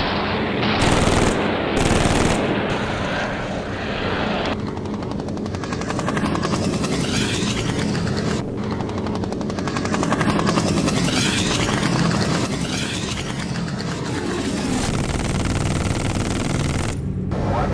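Aircraft engines running with rapid machine-gun fire over them.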